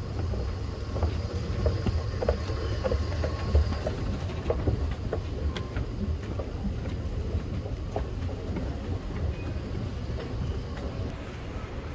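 Steady low rumble of a moving metro train, with scattered light clicks and knocks.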